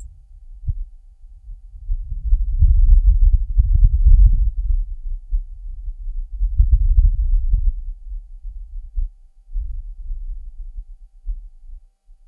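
Wind on Mars gusting past the Perseverance rover, picked up by the rover's microphone with the rover's own noise filtered out: a low rumble that swells a couple of seconds in, gusts again around the middle, then dies down toward the end.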